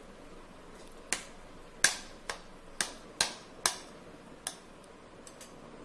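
A metal spatula taps on a nonstick frying pan while mashing cooked cauliflower stuffing. It makes about seven sharp clicks at uneven spacing, with a few fainter ones near the end.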